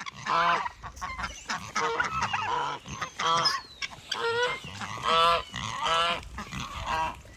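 Farm geese honking, many short calls one after another.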